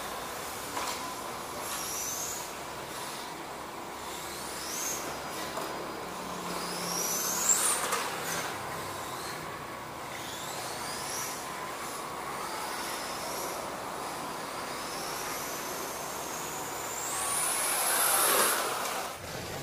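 Electric RC touring car with a 13.5T brushless motor running laps. A high-pitched motor whine rises and falls several times as the car accelerates and brakes, over steady tyre hiss. The longest, loudest rise comes near the end.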